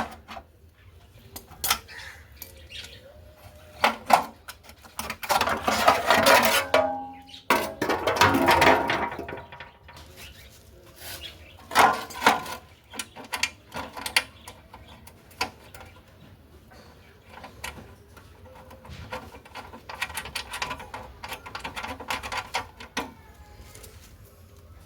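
Hand tools and metal parts of a Suzuki GS150R motorcycle clinking and knocking during chain-cover removal, in scattered knocks with longer scraping stretches about five and eight seconds in.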